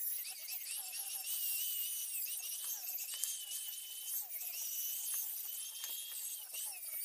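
Angle grinder with an abrasive disc grinding a steel cleaver blade: a high whine that wavers in pitch as the disc is pressed on and eased off the metal, over a steady hissing grind.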